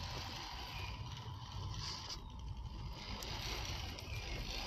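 1/10-scale RC rock crawler with a Jeep Wrangler body driving over gravel and stones: its small electric motor and gears whine steadily while the tyres crunch on the loose ground, over a low rumble.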